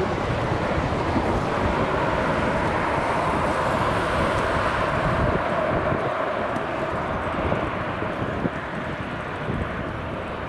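Boeing 737 airliner on final approach, its jet engines giving a steady rush with a faint whine, easing slightly near the end as it nears touchdown. Wind buffets the microphone with a low rumble throughout.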